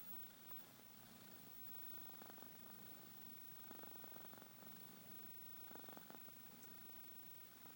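Domestic cat snoring faintly in its sleep: three fluttering breaths, a second or two apart.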